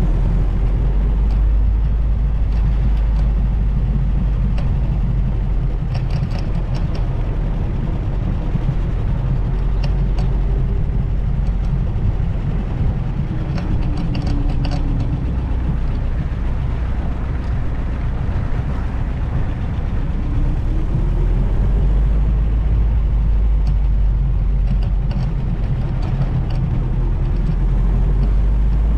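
Vintage Willys Jeep engine running as it drives along. It is a steady, loud low rumble, with a whine that rises and falls in pitch now and then and a few light ticks. The sound is picked up by a GoPro in a foam wind buffer in the open Jeep, so wind buffeting is kept low.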